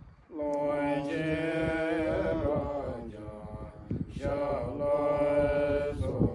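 Buddhist monks chanting a prayer together in long, drawn-out phrases: two phrases with a short break about three seconds in.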